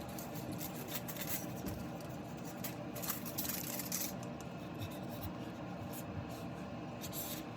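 Soft, irregular brushing and rubbing strokes as hair dye is worked into wig hair with a brush and fingers.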